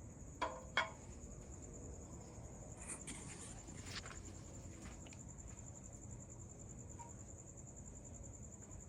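Crickets chirping steadily with a high pulsing trill. Two sharp metallic clinks with a short ring come about half a second in.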